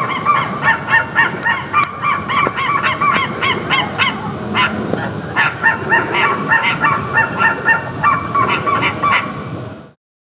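A group of birds giving rapid, overlapping series of short honking calls, about four or five notes a second. The sound cuts off suddenly near the end.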